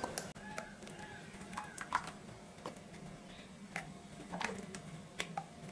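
Faint scattered light clicks and taps of a bowl and pans as strained guava juice is poured from a pan into a measuring bowl and then into a nonstick pan.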